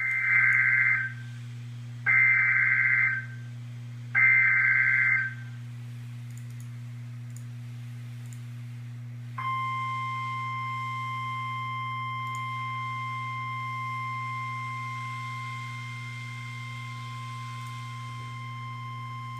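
NOAA Weather Radio emergency alert signal for a severe thunderstorm warning: three one-second bursts of SAME digital header data, about two seconds apart, then after a short pause the steady 1050-hertz Warning Alarm Tone, held for about ten seconds. A low hum runs underneath.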